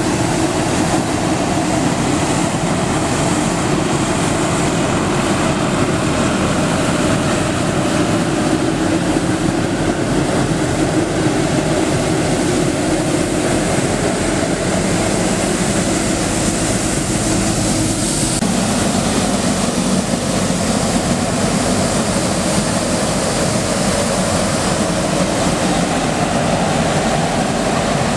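Elgin Whirlwind vacuum street sweeper working: a steady, loud rush of its diesel engine, vacuum fan and spinning brooms on pavement as it drives. The sound shifts about 18 seconds in.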